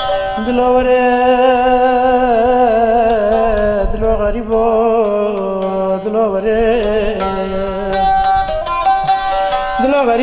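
A man sings long, held notes with a wavering, ornamented pitch to the accompaniment of a long-necked Kurdish saz. The saz's plucked strumming comes forward again for the last two seconds or so.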